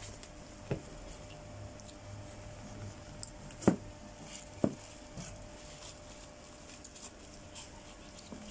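Knocks and soft handling sounds as a jackfruit is cut apart with a knife and pulled apart by a gloved hand on a newspaper-covered table. There are three distinct knocks, the loudest about three and a half seconds in, among light clicks and scraping.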